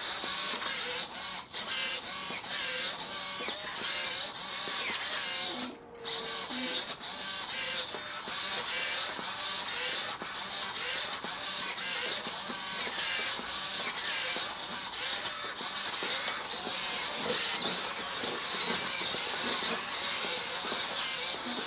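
High-torque hobby servos (60 kg·cm) in a robot doll, whining and buzzing as they drive its arms and legs, the pitch shifting up and down with each movement. There is a brief pause about six seconds in.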